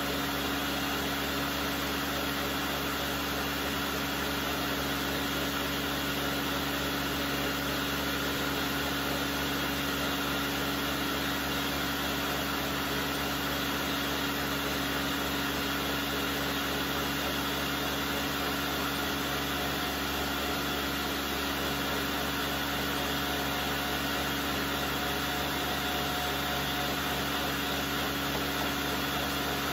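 Countertop blender motor running steadily at one speed, grinding soaked soybeans with water into a slurry.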